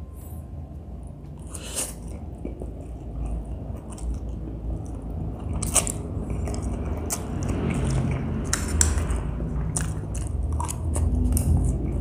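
Close-miked eating: biting and chewing a mouthful of spicy Mie Gacoan noodles, with scattered sharp clicks and crunches. A low rumble runs underneath and grows louder near the end.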